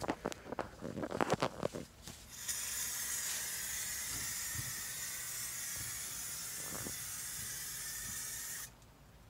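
Aerosol spray can of 2K clear coat, fired through a clip-on trigger handle, hissing steadily for about six seconds and then cutting off suddenly near the end. Before it, in the first two seconds, there is a quick run of short clicks.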